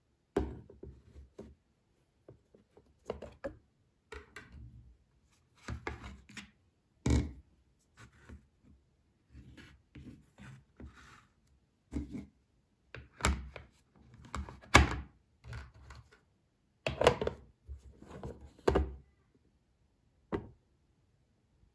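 Plastic microwave egg poacher being handled: its lid and base knock and rub in irregular thunks with short quiet gaps, the loudest about fifteen seconds in.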